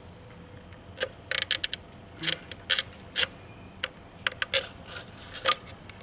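Irregular sharp clicks and clacks of hard parts being handled and worked by hand, as clips around the fuel filter are worked loose. Several come in quick clusters.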